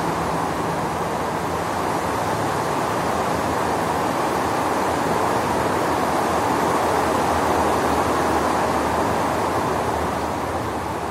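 Steady rain falling, an even hiss that holds without letting up.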